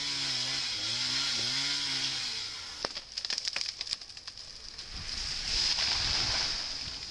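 Gas chainsaw running and revving, its pitch rising and falling as it cuts. About three seconds in there is a run of sharp cracks and snaps, then a louder rushing crash that peaks near the end, as a tree comes down through branches.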